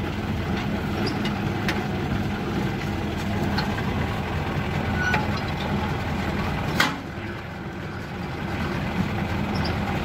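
The engine of a truck-mounted borewell lifting rig running steadily as it hauls the pump's column pipe up out of the bore. A single sharp click sounds about seven seconds in.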